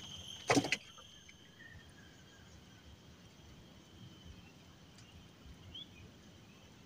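Quiet riverside ambience with a steady high insect drone. A brief burst of a man's voice sounds about half a second in, and a short chirp comes near the end.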